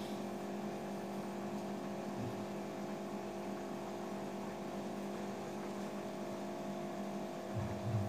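Steady electrical hum in a small room, with a brief low bump near the end.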